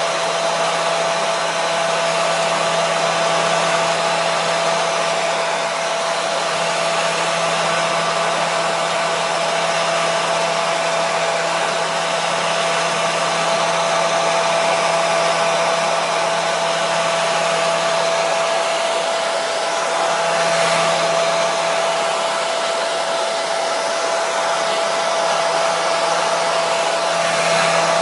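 Hair dryer running steadily: a continuous rush of blown air with a steady motor whine on top.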